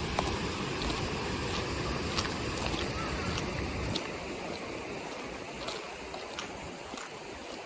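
Steady rushing of the Kamo River's flowing water, with wind rumbling on the microphone until about halfway through, and a few faint clicks.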